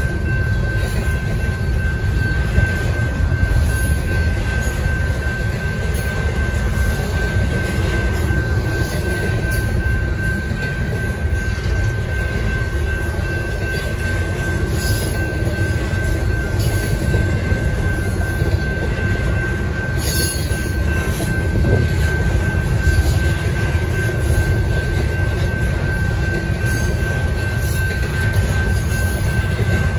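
Double-stack intermodal freight train's loaded well cars rolling past a grade crossing: a loud, steady rumble of steel wheels on rail. A thin, steady high-pitched tone runs through it, with a few faint clicks.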